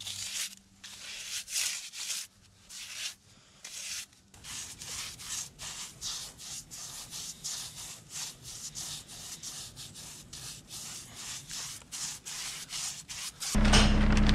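Paintbrush bristles scrubbing Blue Max liquid rubber dampproofing onto the foam face of ICF blocks and the concrete footing, in quick repeated strokes that speed up after a few seconds. Just before the end a louder, steady sound with a low hum cuts in.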